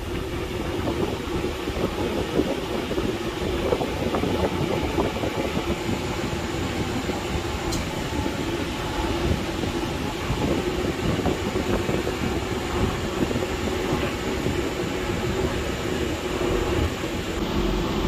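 Daikin RKS71HVMG inverter outdoor condensing unit running: a steady mechanical hum from its fan and compressor, with a constant low tone.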